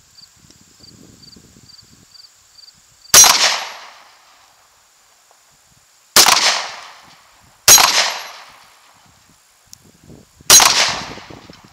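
Four gunshots, each a sharp report fading out within about half a second. The first comes about three seconds in, two more follow close together about three seconds later, and the last comes near the end.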